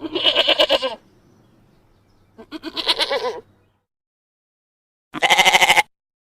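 Goat bleating three times, each a quavering 'maa' about a second long, the last one shorter and starting about five seconds in.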